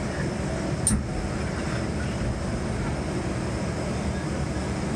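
Excavator's diesel engine and hydraulics running steadily, heard from inside the cab, with one sharp click about a second in.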